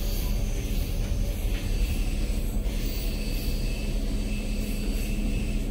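Steady low rumble and hum of a train heard from inside the passenger carriage, with a faint steady high whine above it.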